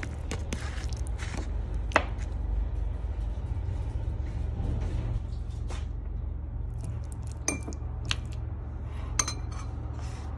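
Metal spoon scooping saucy spaghetti in a plastic food container and serving it onto a ceramic plate, with soft scraping and several sharp clinks of metal on the dishes. The loudest clink comes about two seconds in, and a few ringing clinks come near the end. A steady low hum runs underneath.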